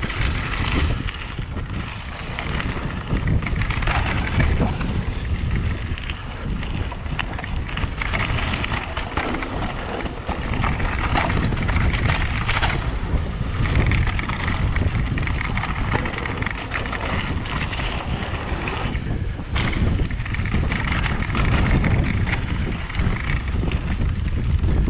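Wind buffeting the microphone over a mountain bike's tyres crunching and rattling on gravel and rocky trail at speed, with a few sharper knocks as the bike hits bumps.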